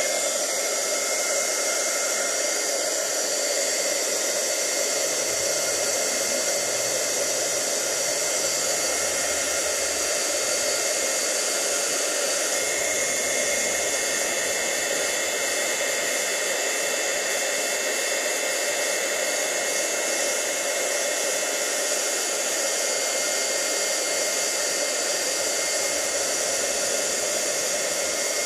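Handheld embossing heat gun running steadily, blowing hot air to melt clear embossing powder: an even rush of air with a faint high whine.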